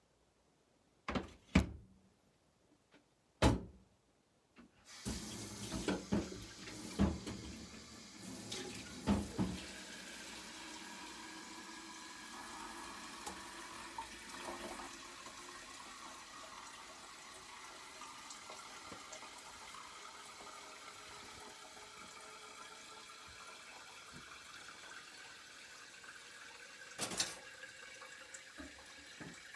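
A few sharp knocks of kitchenware being handled, then a kitchen tap running steadily into a sink from about five seconds in, with more clatter over the running water and another knock near the end.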